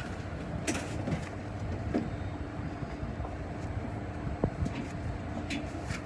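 An engine running steadily, with a few light clicks and knocks of metal work over it.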